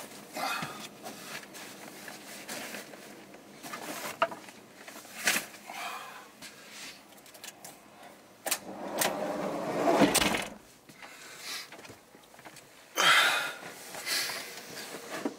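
Irregular knocks, clicks and rustling of objects being handled, with two longer rustling stretches, the louder about two-thirds of the way in and another near the end.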